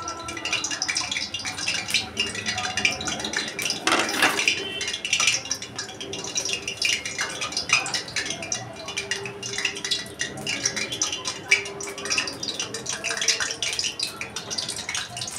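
Hot cooking oil crackling and spitting in a steel kadhai, a dense, steady run of small pops. Near the end a strip of spring roll wrapper is lowered into the oil.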